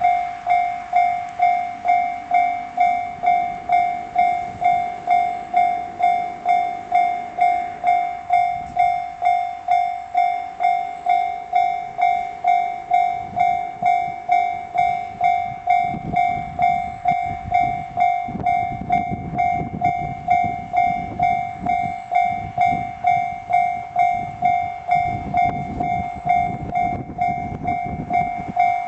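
Japanese railway level crossing alarm bell ringing steadily at a little under two strikes a second. From about halfway a JR West 113 series 3800 train rumbles through the crossing, the rumble swelling and fading in several surges under the bell.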